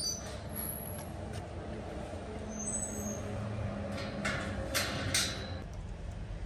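Steady low rumble of a vehicle engine, with three sharp metallic clanks a little past the middle as the steel yard gate is moved.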